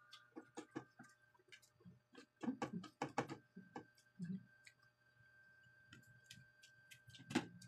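Eating sounds of people eating rice and dried fish by hand: scattered small clicks and smacks, a burst of louder ones midway, and one sharp knock near the end, over a faint steady hum.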